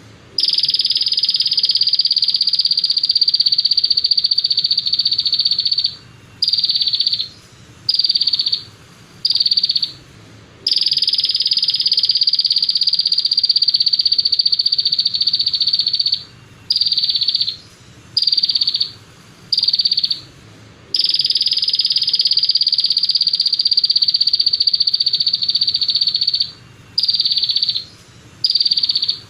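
Songbird song-training (masteran) recording: a loud, high, very rapid buzzing trill held for about five to six seconds, then four short bursts of the same trill about a second apart. The pattern runs three times.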